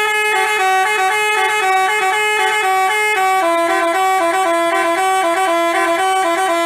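Multi-tone 'basuri' telolet bus horn playing a melody, stepping back and forth between a few notes in short and held blasts, then cutting off abruptly.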